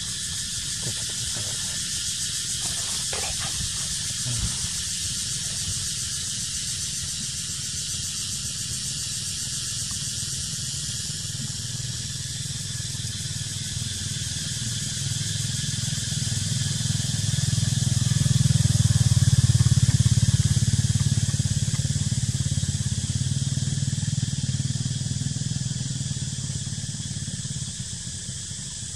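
A passing motor vehicle's engine: a low rumble that builds from about halfway through, is loudest about two-thirds of the way in, and fades near the end. Under it runs a steady high hiss, with a few faint ticks a few seconds in.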